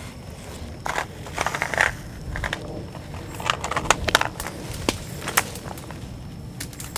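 A nylon mounting strap being pulled tight around a tree trunk and a plastic trail camera being fitted to it: an irregular run of clicks, scrapes and rustles from the strap, buckle and camera housing.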